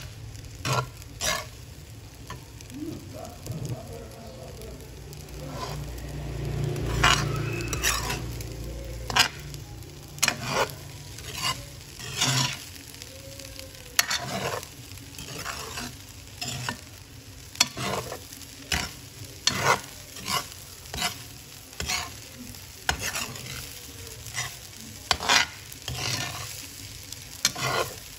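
Metal spatula and ladle scraping and knocking against a stainless steel frying pan as rice is stir-fried, with sharp strokes at irregular intervals of about one a second over a steady sizzle.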